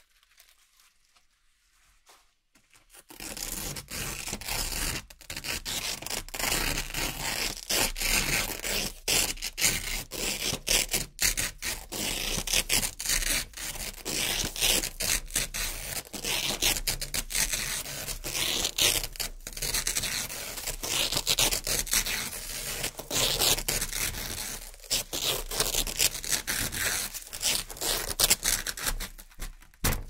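Velcro (hook-and-loop) strips being peeled apart, one rasping rip after another with short breaks between pulls. The ripping starts about three seconds in, after near silence.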